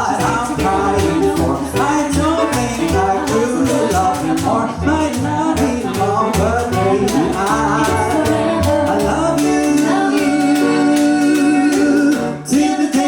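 Live band playing the closing bars of a pop ballad with a singer's voice over it. A long held note breaks off near the end, and a short final chord follows.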